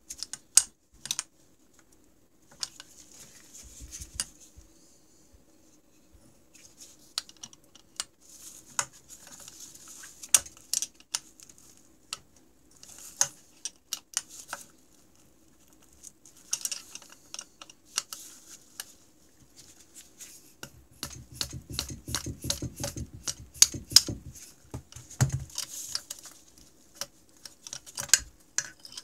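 Hand work on a snowmobile engine's pistons and wrist pins, heard as scattered small metal clicks and taps, with short rustles of leather gloves. A few seconds of denser rattling come about three-quarters of the way through.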